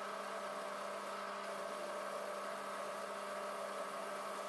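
Metal lathe running, a steady motor hum with a constant whine, as it faces the end of a steel rod.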